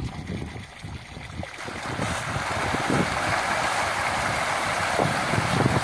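Tilapia thrashing at the pond surface in a feeding frenzy as feed is thrown to them: a dense, continuous splashing that swells about two seconds in.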